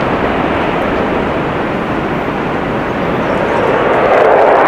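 Airbus A350-1000's two Rolls-Royce Trent XWB turbofan engines running at high power as the airliner starts its takeoff roll: a steady jet rush that swells louder about four seconds in.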